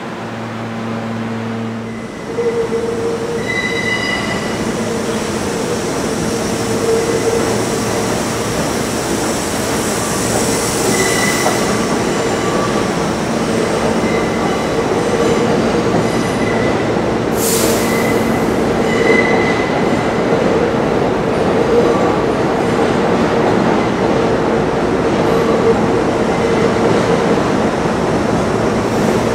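Old stainless-steel subway train running along the platform with a steady rumble, which starts suddenly about two seconds in after a low hum. Wheels squeal in short, high bursts on and off, and there is a brief high hiss a little over halfway through.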